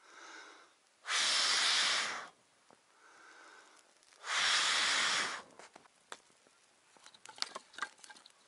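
A person blowing hard onto a small twig fire to bring the flames up: two long blows of about a second each, with quieter in-breaths before them. From about six seconds in, the dry kindling crackles and pops as it catches.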